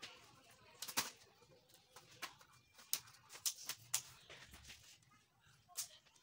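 Scattered sharp plastic clicks and taps, about eight in a few seconds, the loudest about a second in. They come from the plastic corner supports and sheet edges of an LED TV's backlight assembly being pressed and clipped into place.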